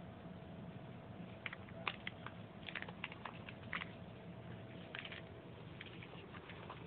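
Quick scratchy scuffs and rustles on artificial turf as a cat pounces and scrabbles at a fluffy wand toy, in irregular clusters from about a second and a half in until near the end.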